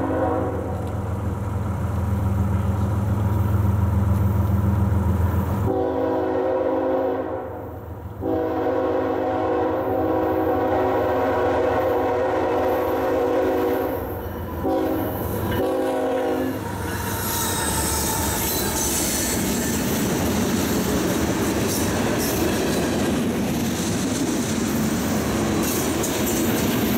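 Freight train's diesel locomotive horn sounding a series of blasts, with breaks at about 8 and 14 seconds in and a short blast near 15 seconds. From about 17 seconds in the train rolls past, a steady rumble of wheels on rail as a string of tank cars goes by.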